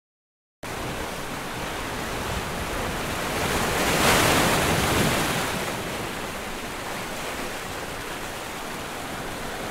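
Sea waves washing onto a beach: a steady hiss of surf that begins abruptly about half a second in and swells with one louder wave about four seconds in.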